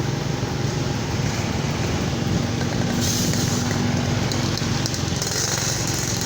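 A vehicle engine running steadily, with a held tone midway and two spells of hiss about three and five seconds in.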